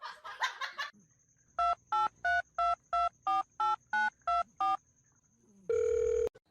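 Telephone keypad tones: about ten quick dual-tone beeps, roughly three a second, as a number is dialled, followed near the end by a short steady tone.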